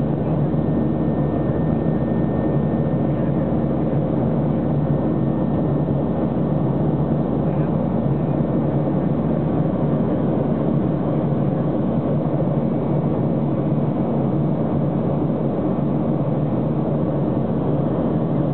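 Cabin noise of a Boeing 737-800 in flight: its CFM56-7B turbofan engines running steadily, heard from inside the cabin as an even drone with airflow hiss.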